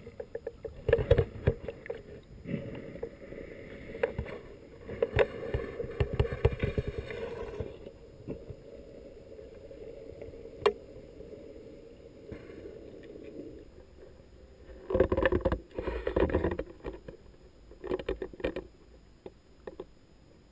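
Muffled water movement, bubbling and scattered knocks heard through a camera held underwater in a shallow stream. There are louder rushes of sloshing about three-quarters of the way through.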